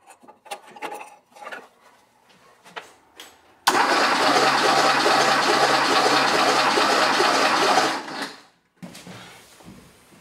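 Porsche 911 Turbo 3.3-litre flat-six cranking on its starter motor for about four seconds, with a steady rhythmic chug, during a compression test. The spark plugs are out, so it spins over without firing. It is preceded by light clicks and rattles as the compression gauge hose is fitted.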